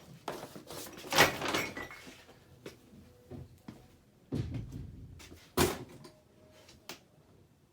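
Irregular knocks, clicks and short rustling noises, with the loudest sharp knock about five and a half seconds in.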